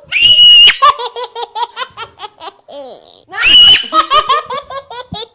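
Baby laughing hard at being tickled: two loud high-pitched shrieks, each followed by a quick rhythmic string of short laughs.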